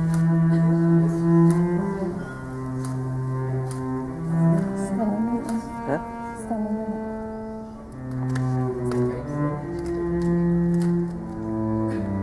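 Slow instrumental music on bowed strings, with long held low notes that change about every second or two.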